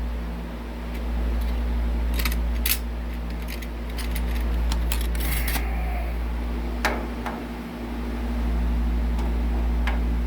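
Loose steel drill bits being sorted and tried for size, giving scattered small metal clinks and rattles, over a steady low mechanical hum.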